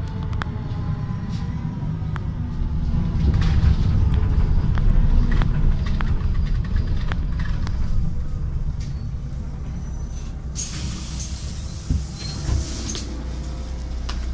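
Solaris Urbino 12 city bus heard from inside: engine and road rumble as it drives and slows. About ten seconds in, a sudden hiss of compressed air starts and lasts a couple of seconds, with two short thumps near its end, as the bus's pneumatics vent at the stop.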